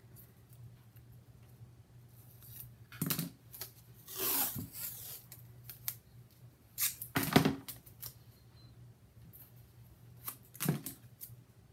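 Handling sounds at a craft table: black construction tape pulled off its roll with a short rasp about four seconds in, and a few sharp clicks and knocks of scissors and the tape roll being picked up and set down, the loudest a little past the middle.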